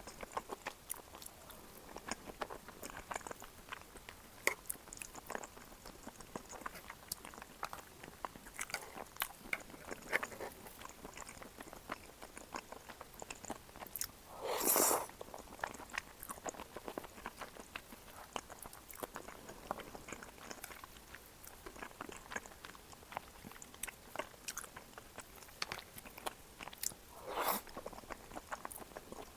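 Close-miked eating of shrimp cream tteokbokki: soft chewing with many small wet mouth clicks. Two louder, noisier sounds of under a second each come about halfway through and near the end.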